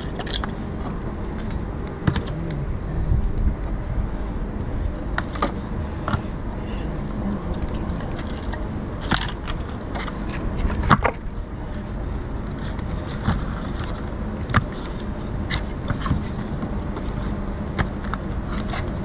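Firewood being loaded into a wood-burning stove: scattered knocks and clatters of logs and the metal stove, a few sharper bangs among them, over a steady low background noise.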